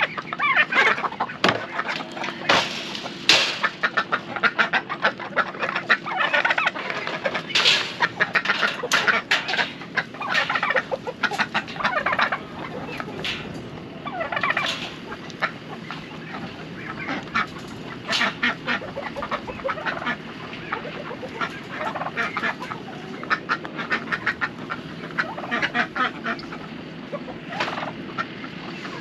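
A flock of chickens calling and clucking in many short, irregular calls, busiest in the first half.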